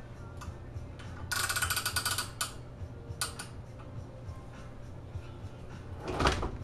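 Morgan Line-O-Scribe proofing press mechanism at work: a rapid run of clicks lasting about a second, then a couple of single clicks. Near the end comes a louder scraping rush.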